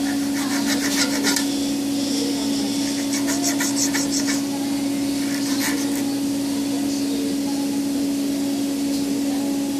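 A flat metal blade scraped back and forth over a thin 1 mm metal-sheathed wire on a steel bench, scoring a mark into the sheath: bursts of quick rasping strokes, about five a second, around one second in, again between three and four seconds and briefly near six seconds. A steady hum runs underneath.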